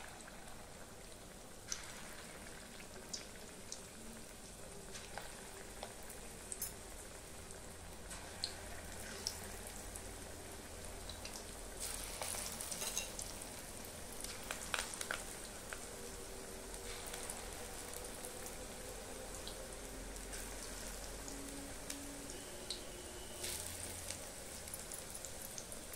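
Moong dal pakora batter deep-frying in hot oil in a kadai: a steady sizzle with scattered crackles and pops, louder for a few seconds about halfway through as more batter is dropped into the oil.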